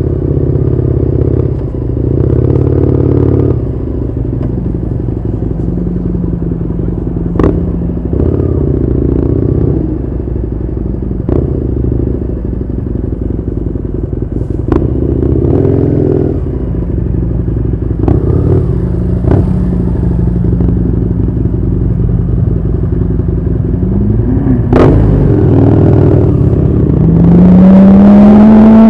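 Husqvarna Nuda 900R's parallel-twin engine running at low revs, with a few sharp clicks spread through. There is a short throttle blip about four seconds before the end, then the revs climb steadily as the bike accelerates.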